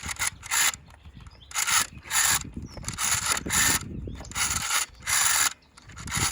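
Rotary telephone dial being pulled round and whirring back, several digits dialled one after another, each return a short mechanical whirr with a gap between.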